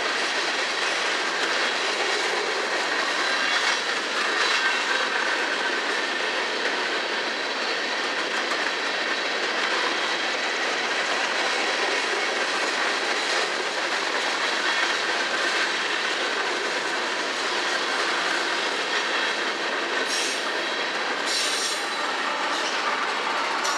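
Empty coal cars of a freight train rolling past close by: a steady rumble of steel wheels on rail with clickety-clack and a thin wheel squeal. Two short high screeches come about twenty seconds in.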